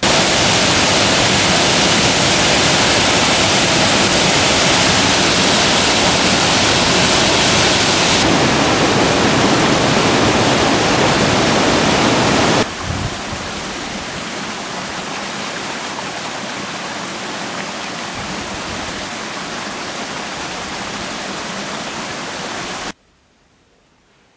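Stockghyll Force waterfall rushing: a loud, steady noise of falling water. About halfway through it changes to a quieter rush of the stream over rocks, then cuts off suddenly near the end to faint room tone.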